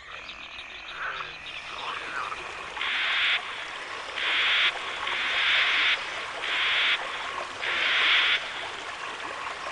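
Frogs croaking in a series of short bursts, about one a second, over a faint steady background: jungle-pond ambience in an animated cartoon.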